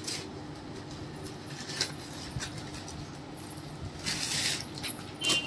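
Gift packaging rustling and crinkling as a package is opened, in several short bursts, the longest about four seconds in, over a faint steady hum.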